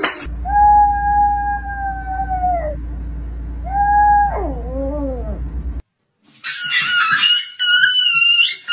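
A small dog howling: one long held note, a shorter second note, then a falling, wavering howl, over a steady low hum. After a short break, a higher-pitched wavering animal cry follows.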